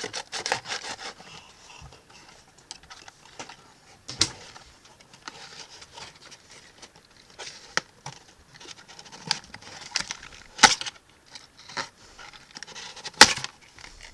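Knife sawing through the ties that hold toy parts in their packaging: quick rasping strokes at first, then scattered plastic rustling and small clicks. Sharp snaps come about four, ten and a half and thirteen seconds in as pieces cut free.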